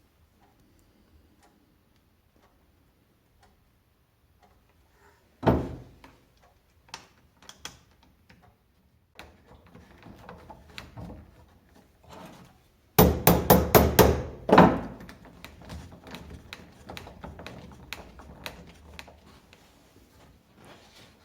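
Wooden knocks and clunks from handling the plywood vise and workpiece. There is one loud thunk about five seconds in and scattered lighter knocks and clicks. Past the middle comes a quick run of six or seven hard knocks in about a second and a half.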